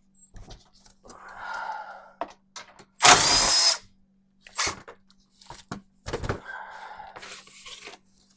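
A power drill run in one loud burst of just under a second about three seconds in, backing out a bolt from the truck's plastic under-engine shroud, among scattered knocks, clicks and rattles of tools and parts.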